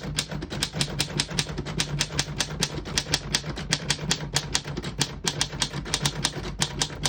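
1941 Corona Comet De Luxe portable typewriter being typed on at speed: a fast, even run of type-bar strikes, about six or seven a second, without a pause.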